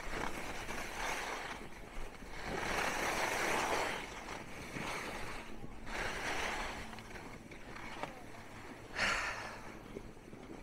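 Skis swishing and scraping over groomed, packed snow while skiing downhill, rising and falling in several swells, with wind noise on the microphone.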